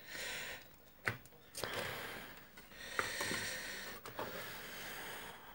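Desoldering a transistor from a UPS circuit board: three stretches of breath-like hissing, with sharp clicks about a second in and again about four seconds in.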